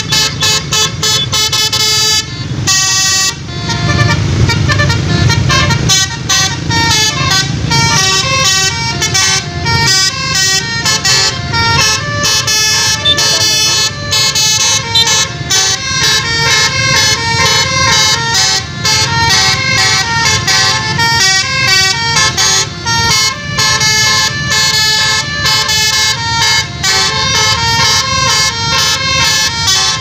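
Tour bus's Basuri telolet musical horn playing a fast, continuous melody of quickly changing notes, with a short break a few seconds in. A low engine rumble runs underneath.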